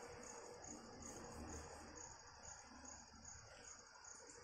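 Near silence: faint room tone with a steady high-pitched chirping that pulses evenly, two or three times a second.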